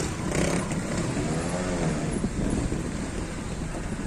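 Trials motorcycle engine revving once, its pitch rising and falling about a second in, over a steady low outdoor rumble.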